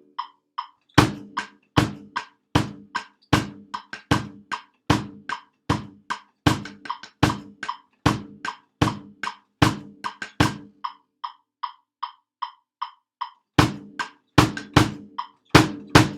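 Snare drum and bass drum playing a steady beat over a steady metronome-style click of about two or three ticks a second. About ten seconds in, the drums stop for roughly three seconds while the click carries on. The drums then come back in near the end.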